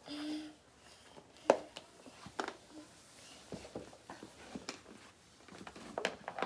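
Scattered light knocks and taps in a small room, the sharpest about a second and a half in and a cluster near the end, after a brief low hum at the start.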